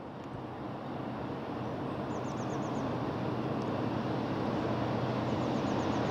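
Class 56 diesel locomotive with a Ruston-Paxman V16 engine approaching, its steady low engine note growing gradually louder over outdoor background noise.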